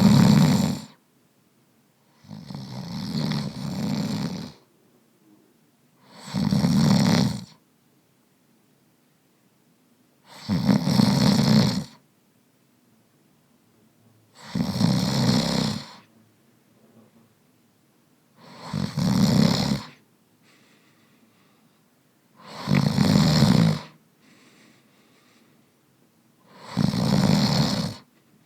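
A man snoring in a slow, regular rhythm, one rattling snore about every four seconds, with faint breaths between the snores.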